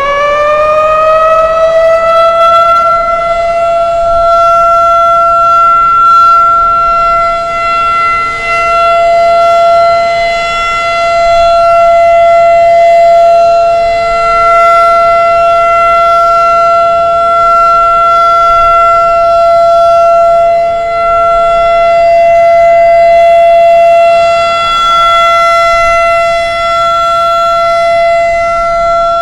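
Federal Signal 2001 electromechanical civil defense siren sounding its full alert signal. It finishes winding up to pitch in the first couple of seconds, then holds one steady high tone that swells and dips slightly in loudness.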